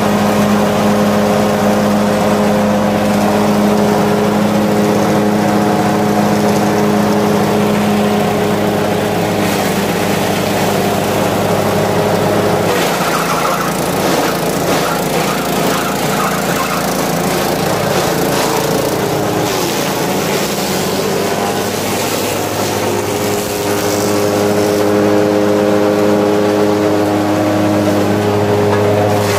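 A small petrol engine runs steadily, driving a grass chopper as fresh grass is fed in and shredded into cattle fodder. Through the middle stretch the steady hum gives way to a rougher, clattering noise of chopping, then settles back.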